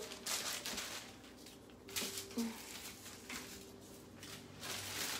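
Quiet room with a faint steady hum, broken by a few soft rustles and knocks of a person moving about and handling things.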